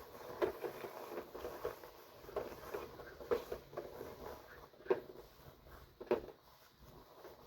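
A run of irregular light taps and knocks, a few of them sharper and louder, like objects being handled and set down.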